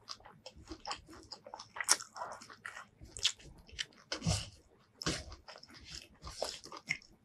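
Close-miked eating by hand: irregular wet clicks, smacks and crunches of chewing, along with fingers squishing rice and chilli dip together.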